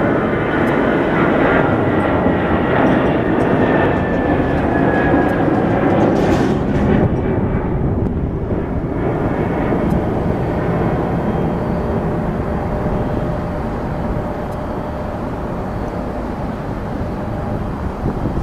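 Airbus A319's two CFM turbofan engines at takeoff thrust as the jet climbs away, a loud rushing jet noise. A whine falls in pitch over the first few seconds; about seven seconds in the sound loses its hiss and dulls, then slowly fades.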